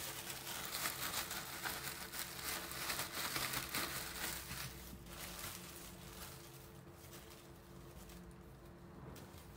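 Thin plastic bag crinkling as it is shaken and rubbed by hand to coat an almond makrout cookie in icing sugar inside it. The rustling is loudest for the first five seconds or so, then goes on more softly.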